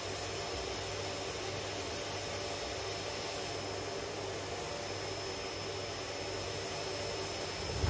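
Canister vacuum cleaner running steadily with an even whooshing motor noise and a faint high whine.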